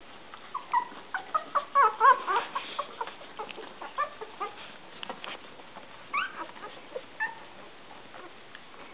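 Newborn puppies squeaking and whimpering while nursing: many short, high squeals in quick succession through the first three seconds, then a few scattered ones.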